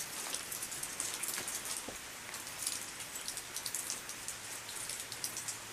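Light rain pattering: a steady hiss dotted with many small, quick drop ticks.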